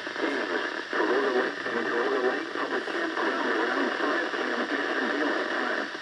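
NOAA Weather Radio broadcast thick with static: an automated voice reading out a severe thunderstorm warning, thin and tinny, under a steady hiss.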